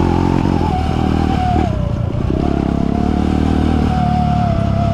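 Kawasaki KLX trail motorcycle running, with a steady high whine over the engine note that wavers and dips briefly about two seconds in. The whine is the odd electric-motor-like sound the bike has developed, on a bike whose clutch is not biting.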